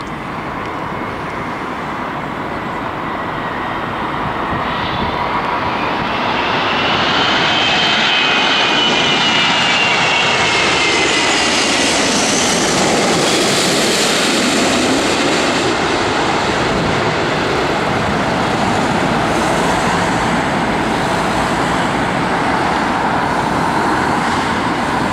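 Emirates Airbus A380-800 passing low overhead on landing approach, its four jet engines growing louder over the first several seconds. As it passes, whining engine tones glide down in pitch, and the jet noise then holds steady as the airliner descends toward the runway.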